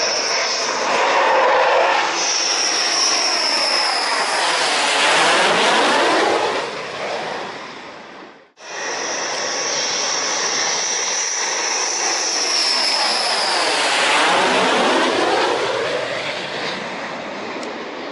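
Jet aircraft passing low overhead on landing approach, twice: a loud engine noise with a high whine that sinks slightly in pitch as each goes by. The sound breaks off abruptly about eight seconds in, between the two passes.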